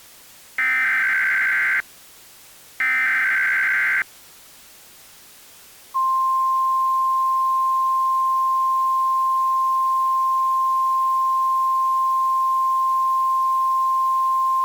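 Emergency Alert System SAME header: two short screeching data bursts about a second apart, ending a series of three. About two seconds later the National Weather Service's single-tone attention signal starts, a steady pure tone that holds without a break.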